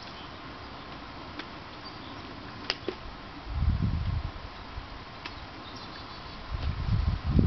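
Poulan 18-inch two-stroke chainsaw being pull-started: two pulls of the starter cord, one about three and a half seconds in and another near the end, each a short, low whirr as the engine turns over without starting. A single sharp click comes just before the first pull.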